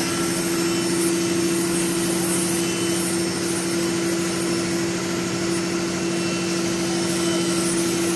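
Mini stone CNC router's spindle running with a steady, even hum.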